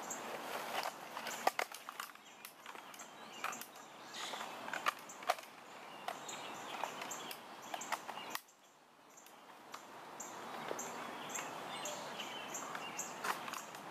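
Outdoor ambience with a small bird chirping at short, fairly even intervals and scattered clicks and rustles as a rifle is handled. The background drops out abruptly a little past the middle, then slowly returns.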